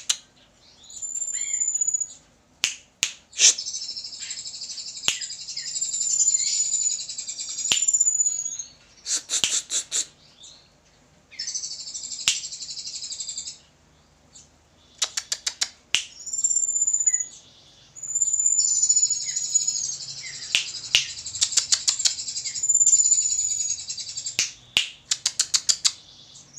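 Songbird singing: long runs of dense, high, buzzy chatter mixed with short high whistles, broken by rapid trains of sharp clicks and a few brief pauses. It is a bird-song training recording of the kind Indonesian keepers play to murai (magpie-robins).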